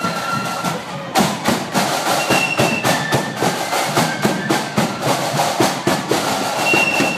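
Marching flute band playing: a high flute melody over drums, with the drums striking loudly and keeping a steady beat from about a second in.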